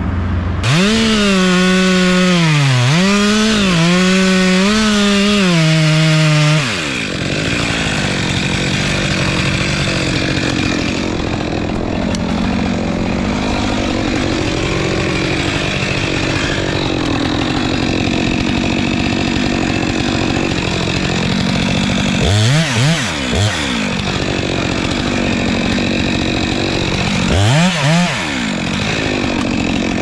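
Two-stroke Stihl MS 462 chainsaw starting up about half a second in and revving with throttle blips, then cutting into a tree trunk under load from about six seconds on. Twice in the second half the engine speed drops and revs back up.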